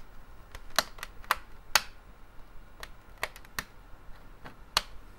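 Sharp, irregular clicks and taps of hands handling the Artec EVA 3D scanner's plastic housing and its USB cable plug while seating the connector, about seven in all.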